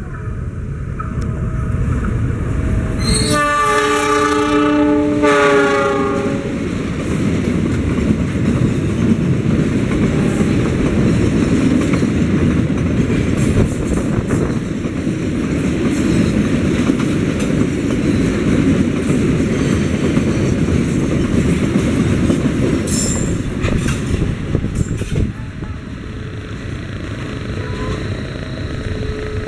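A fuel tank train led by a CC 206 (GE CM20EMP) diesel-electric locomotive passing close by. The locomotive's multi-tone horn sounds for about two and a half seconds a few seconds in, its pitch dropping as it goes by. Then comes a long steady rumble and clickety-clack of the tank wagons rolling over the rails, easing off near the end.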